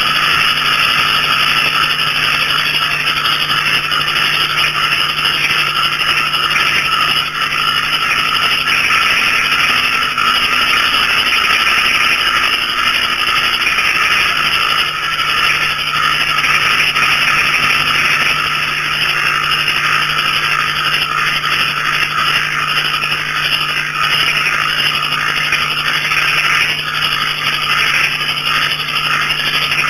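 Night chorus of small frogs, banded bullfrogs and crickets calling all at once: a dense, unbroken trilling with a steady low drone beneath it.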